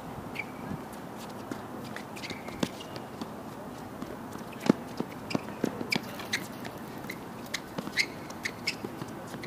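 Doubles rally on a hard tennis court: rackets strike the ball with short sharp pops, the loudest about halfway through. Footsteps and brief shoe squeaks on the court surface come between the hits.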